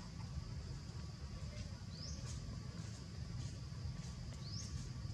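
A bird's short, high, rising chirp, heard twice about two and a half seconds apart, over a steady low rumble of outdoor ambience.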